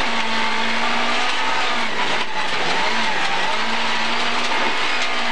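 Toyota rally car engine running hard at high revs, heard from inside the cabin, with gravel rushing under the car. About halfway through the revs dip briefly and come back as the car shifts down from fifth to fourth gear.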